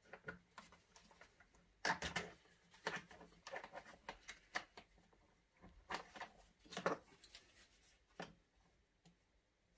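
Scattered light clicks and knocks of small plastic and metal parts being handled while a fuel hose is pushed onto the carburetor of a Stihl MS 170 chainsaw, quieter near the end.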